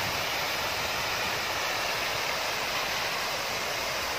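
Large park fountain: tall water jets falling and splashing into the stone basin, a steady, even rush of water.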